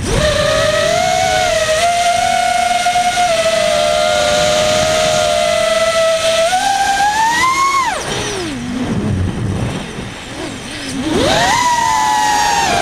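Brushless motors and 5045 props of a Lumenier QAV-XS FPV quadcopter whining in flight, heard from the onboard camera. The pitch holds steady, climbs a little, then drops away steeply about eight seconds in as the throttle comes off. It climbs back sharply about three seconds later as the throttle is punched again.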